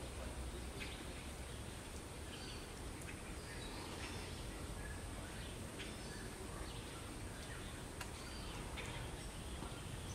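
Outdoor ambience: faint, scattered short bird chirps over a low steady rumble, with a thin, steady high-pitched tone.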